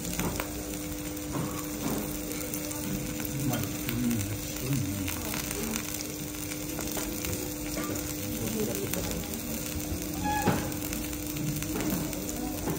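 Butter and food sizzling on a flat steel teppanyaki griddle, with scattered light taps of a metal spatula over a steady low hum.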